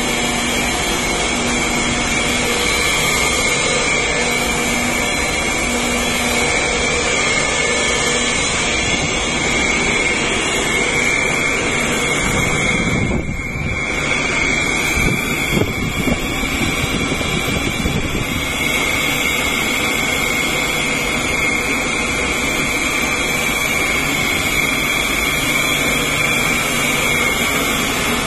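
Oil pyrolysis plant machinery running: a loud, steady mechanical drone with a constant high-pitched whine over it, briefly dipping about halfway through.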